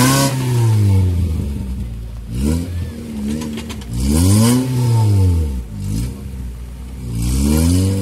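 Engine of a modified four-wheel-drive off-roader revving hard in repeated bursts while it climbs a steep muddy slope under load; the pitch rises and falls about four times.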